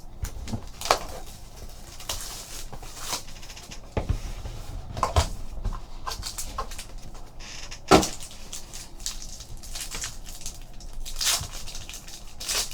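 Trading cards and their box packaging being handled on a tabletop: scattered taps, clicks and rustles, with a sharper knock about eight seconds in.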